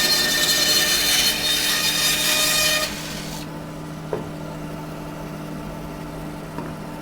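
Bandsaw cutting through a wood blank, trimming off the remnant of a split, until about three seconds in, when the cut ends and the saw runs on unloaded with a steady hum. A small knock comes about a second later.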